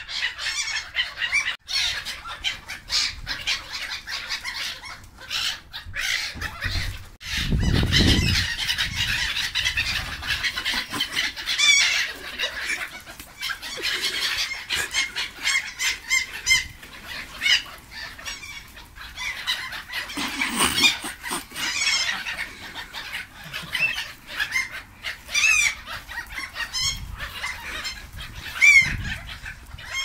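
A flock of black-headed gulls calling excitedly, many short harsh cries overlapping continuously as they squabble over food. There is a brief low rumble about eight seconds in.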